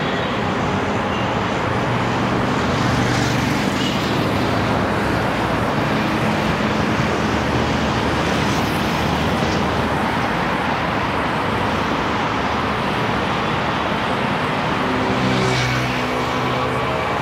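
Road traffic heard from a moving bicycle: a steady rush of road noise, with the engine hum of passing vehicles growing louder about three seconds in and again near the end.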